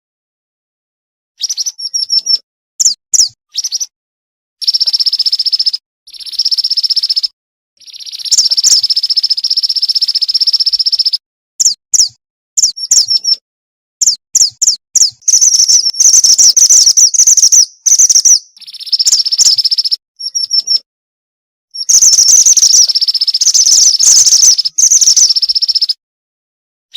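Female mantenan gunung bird calling, played as a lure recording: quick runs of short, high chirps alternate with buzzy trills held for a second or more. The phrases start and stop abruptly, with silent gaps between them.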